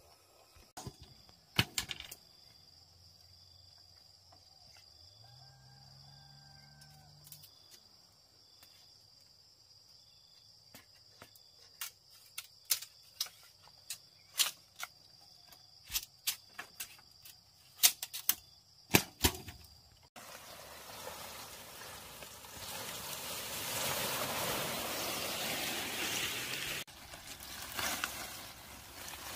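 Sharp knocks of a machete striking a bamboo pole, a few at first and then in a quicker run, over a steady high-pitched insect drone. From about two-thirds in, a loud, continuous rustle of dry palm leaves being handled and sorted.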